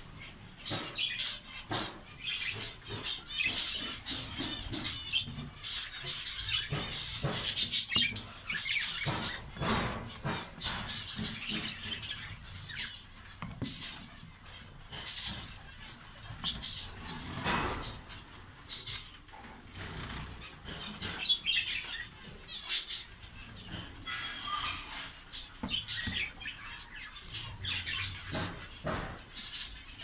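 A colony of zebra finches chirping and calling, many short overlapping chirps without pause, with wings fluttering now and then.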